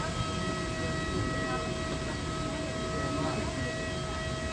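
Steady cabin air noise inside a parked Airbus A330-900neo during boarding: a constant rushing hum with a steady high whine on top.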